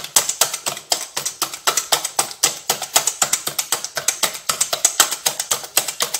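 Wire whisk beating a runny egg and sugar mixture in a stainless steel bowl, its wires clicking against the metal in a fast, even rhythm of about six strokes a second.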